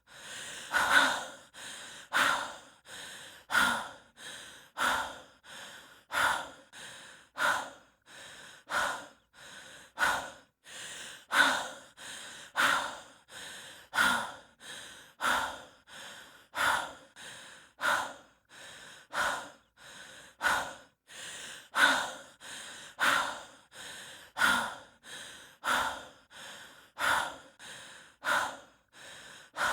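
A person breathing heavily from exertion, as a hiker does, in a steady rhythm: a strong breath, then a softer one, the pair repeating a little less than once a second and a half.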